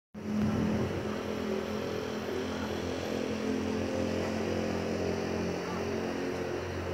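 Steady drone of distant motor traffic: a low, wavering engine hum over a constant rushing noise.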